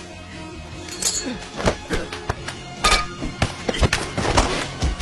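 Film fight sound effects: a quick run of punch and body-blow impacts, starting about a second and a half in, over a tense music score.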